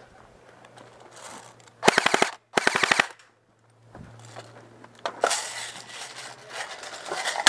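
Airsoft rifle firing full-auto: two short, loud bursts of rapid shots about two seconds in, a fraction of a second apart.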